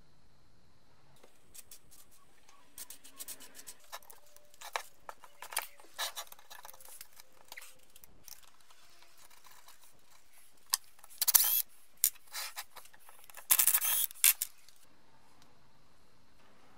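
Socket ratchet clicking as bolts are undone from a brake caliper. There are two spells of quick clicks, the second, starting about eleven seconds in, the louder.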